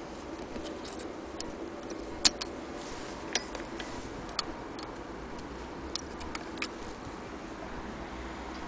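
A few irregular small clicks from the shuttle and slide plate of an antique Singer 12k hand-crank sewing machine as the bullet shuttle is handled and taken out of its race, the sharpest about two seconds in, over a faint steady hum.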